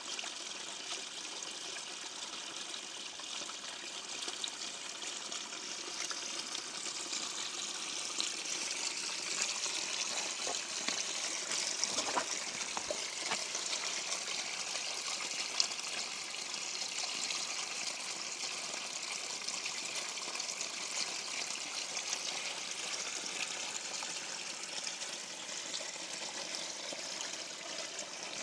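Shallow creek water trickling and babbling over and between stones, a steady splashing hiss.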